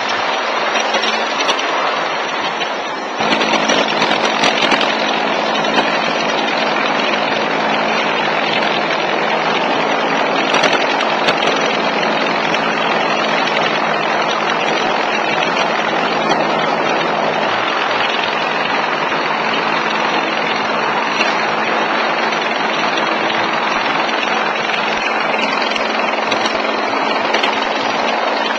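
Helicopter hovering low and close, its rotor and turbine engine running steadily and loudly. The sound steps up suddenly about three seconds in and then holds steady.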